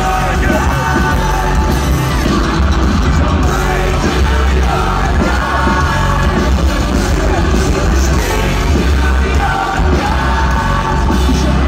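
Rock band playing live at loud volume: guitars, bass, drums and a singer, with a heavy low end, heard from within the crowd, with some crowd yells mixed in.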